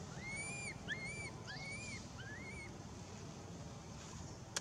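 Infant long-tailed macaque crying: four short, high whimpering calls, each rising, holding and then falling, in quick succession during the first half. A sharp click sounds just before the end.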